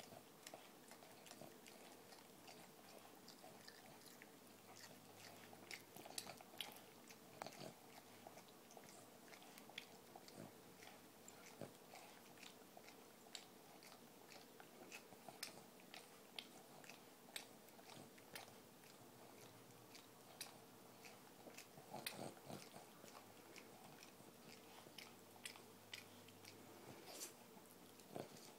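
Boston terrier licking another dog's mouth: faint, irregular wet smacks and clicks of tongue and lips, many times over.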